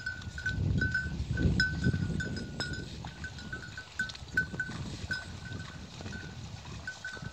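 Wind buffeting the microphone in gusts, loudest in the first few seconds. Over it, a short, clipped high note repeats irregularly several times a second.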